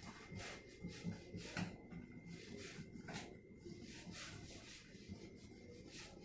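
Faint swishing of a cloth rubbed over a kitchen cabinet door in quick strokes, one or two a second and irregular.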